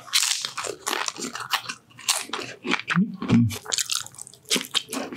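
A person taking big bites of cheese-covered fries and wrap close to the microphone, then chewing, with many quick crisp crunches and wet mouth sounds.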